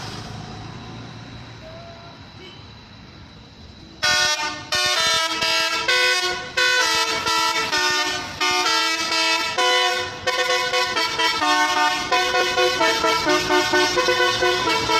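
A multi-tone 'telolet' musical air horn, first heard about four seconds in, plays a melody of short notes and chords that change pitch every fraction of a second with brief gaps. Before it comes quieter low vehicle noise.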